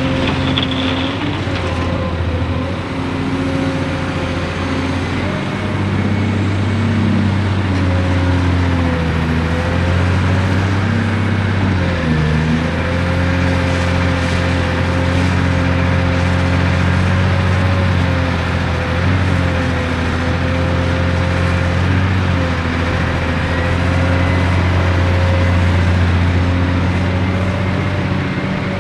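Cat 385C excavator's C18 diesel engine running hard at work, a steady heavy drone whose pitch dips briefly a couple of times, most clearly about twelve seconds in, then recovers.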